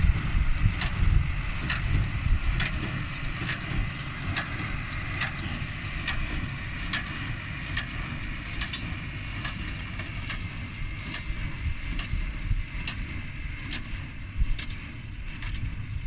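New Holland 377 hay baler working behind a Ford 6810 tractor: a sharp, regular knock about once a second, the baler's plunger stroking, over the tractor's steady engine rumble.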